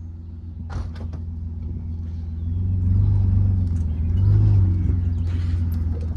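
A vehicle engine running with a steady low hum, getting louder for a couple of seconds from about midway, with a short clatter about a second in.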